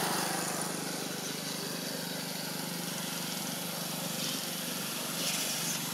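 A steady low engine hum under continuous outdoor background noise.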